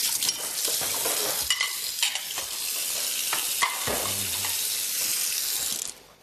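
A steady hiss that cuts off abruptly near the end.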